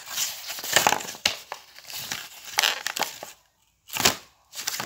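Stiff plastic blister packaging crinkling and crackling in the hands as it is handled and worked at to get it open, with many sharp clicks. The crackling stops briefly after about three seconds, then comes back with a loud crackle.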